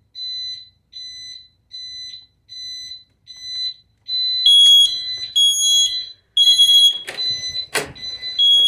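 Smoke detector sounding its test alarm: a high electronic beep repeating about every 0.8 seconds. About four seconds in a second, louder alarm beeping joins it, and there is a single knock near the end.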